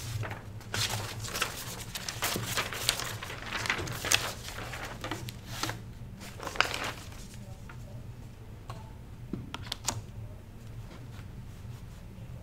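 Sheets of paper rustling and being shuffled for several seconds, then a few sharp clicks about ten seconds in, over a steady low room hum.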